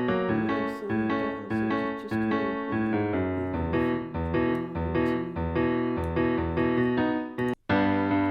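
Piano or electric piano playing a run of struck chords and notes without singing. The sound cuts out for a split second near the end and comes straight back.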